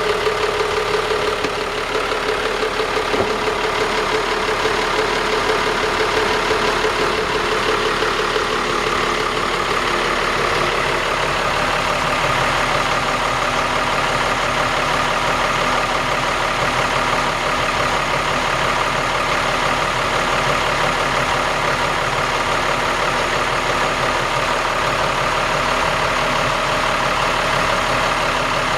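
Nissan Sun Cat 8.8X boat's engine running steadily, its tone changing about ten seconds in.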